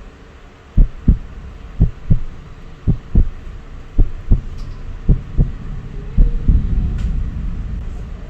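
Heartbeat sound effect: six low double thumps, lub-dub, about one beat a second, over a low hum that fades toward the end.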